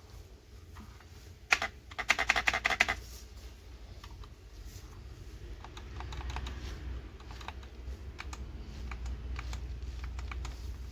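Typing on an HK Gaming GK61 60% optical mechanical keyboard: one sharp key click about a second and a half in, a quick run of keystrokes around two to three seconds in, then scattered lighter keystrokes.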